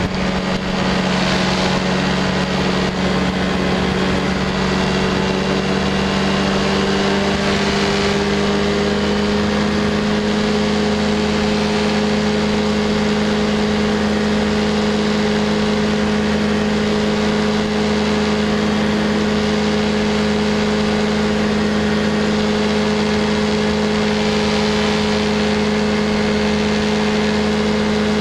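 Light aircraft engine and propeller running at high power, heard from on board. The pitch rises a little a few seconds in as the aircraft lifts off the grass strip and climbs out, then holds steady.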